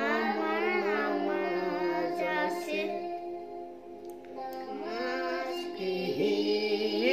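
A boy and a man singing a Bengali gojol, an Islamic devotional song, in long, wavering held notes. The singing dips quieter around the middle and swells again near the end.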